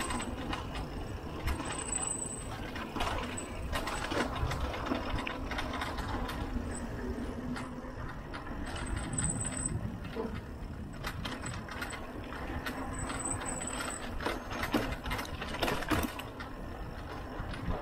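Mountain bike coasting downhill on cracked concrete: wind rumbling on the microphone, with the bike rattling and clicking over bumps.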